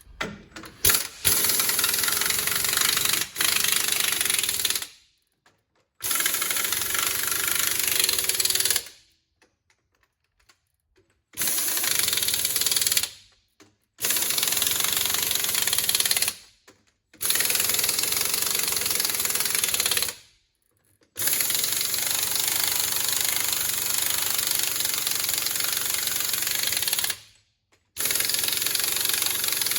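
Air impact wrench running nuts onto a truck wheel in about seven bursts of two to six seconds each, stopping dead between them.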